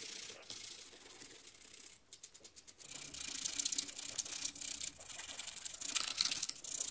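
A cloth pad rubbed over a rough painted cement surface: a dry, scratchy scrubbing, with a run of quick short strokes about two seconds in and steadier, louder rubbing from about three seconds on.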